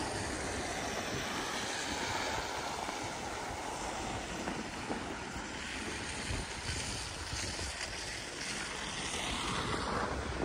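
Wind buffeting the microphone: a steady rushing noise with a low, uneven rumble underneath.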